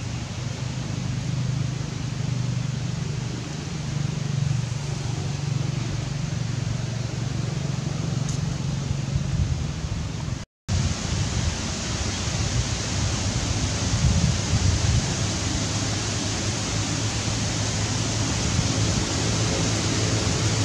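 Steady rushing background noise with a low hum underneath, dropping out for a split second about ten seconds in.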